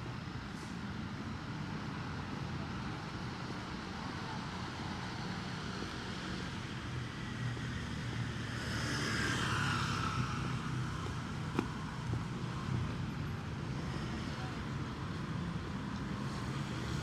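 City street traffic: a steady hum of vehicles, with one passing closer about halfway through, its sound swelling and falling in pitch as it goes by.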